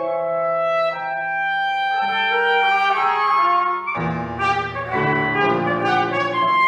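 Clarinet and trumpet playing held notes in a contemporary chamber piece, with a low chord entering suddenly about four seconds in.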